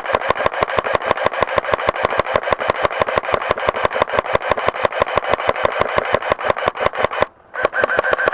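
Airsoft electric gun (AEG) firing on full auto: a long, even string of shots at about eight or nine a second over the gearbox motor's whine, stopping about seven seconds in, then a second short burst near the end.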